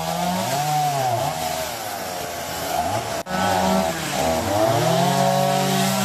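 Chainsaw running and revving up and down as it cuts through the trunk of a fallen kapok tree, its engine note rising and falling repeatedly. It breaks off sharply for an instant about three seconds in.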